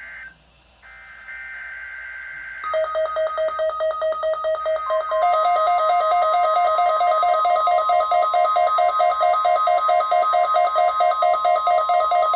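Emergency Alert System weekly test tones from NOAA Weather Radio. It opens with a short burst of buzzy SAME data tones. From about three seconds in comes a fast pulsing electronic alert beep, about four pulses a second. It gets louder about five seconds in, when the steady 1050 Hz warning alarm tone joins it.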